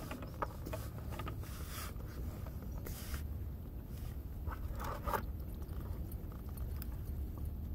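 Faint handling noises from a fuel filter being worked off its line and drained over a plastic drain pan: a few brief scrapes, the plainest about 5 seconds in, over a steady low rumble.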